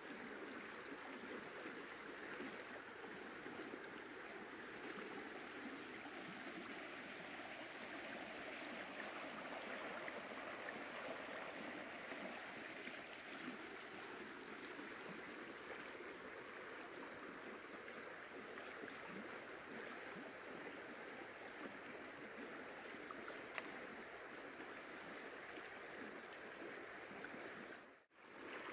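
Steady sound of a small stream's water flowing, with one brief click about three-quarters of the way through. The sound drops out briefly near the end.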